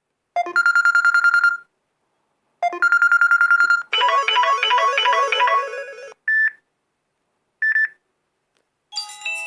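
Samsung Galaxy Grand Prime ringtones and alert tones played one after another. Two identical rapidly pulsing tones come first, then a short bright melody, two brief single beeps, and another tune starting near the end.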